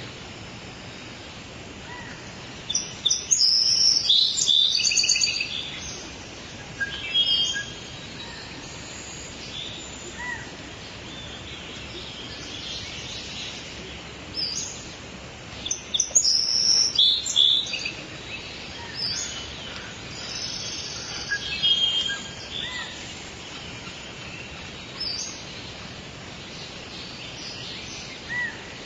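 Songbirds singing and chirping over a steady outdoor background hiss, with two louder bursts of song and shorter calls scattered between.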